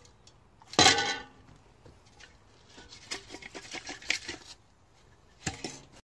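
Metal pot clanking: one loud ringing clang about a second in, a run of light rattling clinks in the middle, and another ringing knock near the end.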